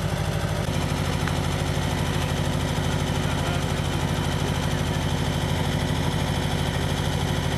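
The four-cylinder engine of a 1974 Anadol pickup idling steadily with the bonnet up, an even pulsing beat.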